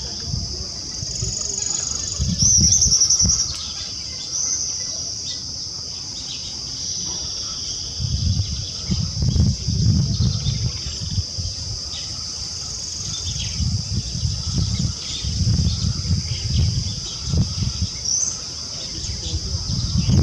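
Steady high-pitched insect drone of cicadas or crickets, with a few short bird chirps, the loudest between two and three seconds in, over bursts of low rumbling.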